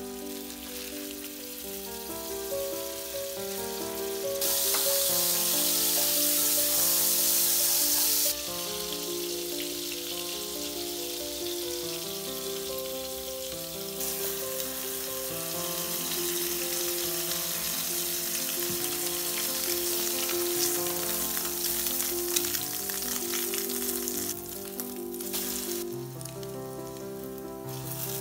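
Margarine and oil sizzling in a nonstick frying pan as egg-soaked bread fries for French toast. The sizzling grows loud about four seconds in for several seconds, then settles to a steady sizzle. Light background music plays underneath.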